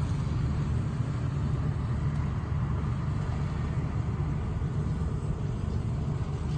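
Kartar 4000 and Matharu 4600 combine harvesters running while harvesting wheat: a steady, low engine rumble.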